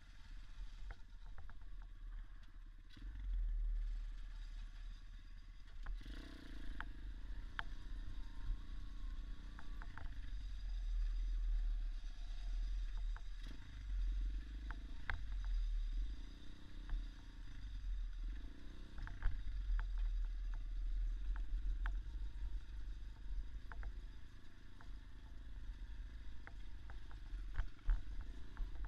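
Small dirt bike engine running under way, its pitch rising and falling again and again as the throttle is worked, over a constant low rumble, with scattered clicks and clatter from the rough ride.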